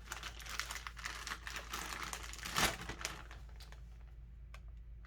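Packaging crinkling and rustling as it is handled, with many small clicks, loudest about two and a half seconds in and quieter near the end.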